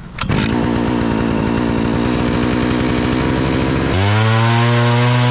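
Gas-powered ice auger, a small two-stroke engine running hard as it drills, rough and rattling at first, then settling into a steady even drone about four seconds in.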